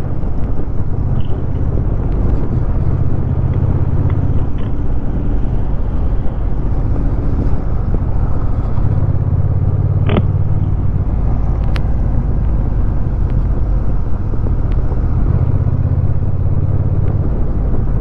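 Honda Rebel 1100 DCT's parallel-twin engine running steadily at low road speed, heard from the rider's position with wind and road noise as a continuous low drone. One sharp click about ten seconds in.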